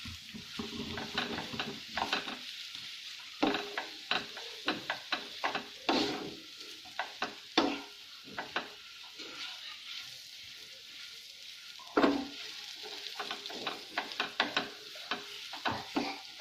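Wooden spatula stirring and scraping mashed potato around a non-stick pan, with irregular knocks and scrapes against the pan over a light sizzle of oil, while the spiced potato filling for batata vada is mixed and fried. The knocks thin out for a few seconds past the middle, then pick up again.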